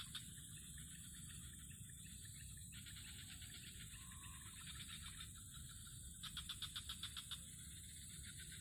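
Quiet ambience of insects and small animals around a pond: a steady high-pitched insect drone, with bursts of rapid pulsed chirping several times, the loudest about six to seven seconds in.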